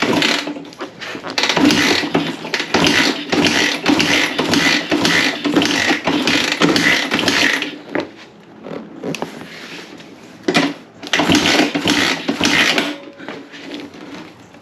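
Kawasaki KLX dirt bike engine being cranked over with the spark plug out for a compression test, in two runs of rhythmic pulses about twice a second, the first for about seven seconds, the second shorter, starting a few seconds after the first stops.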